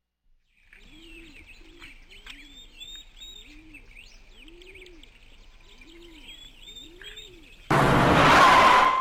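Birds chirping and singing, with a low rising-and-falling call repeated about once a second underneath. Near the end a sudden loud burst of rushing noise with a steady whistling tone cuts in and lasts about a second, much louder than the birds.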